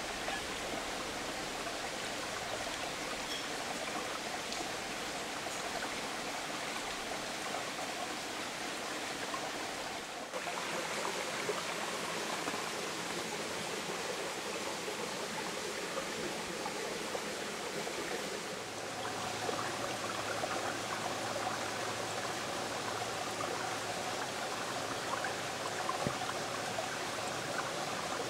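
A small stream running over rocks: a steady rushing of water, whose sound shifts a little twice, about 10 and 19 seconds in.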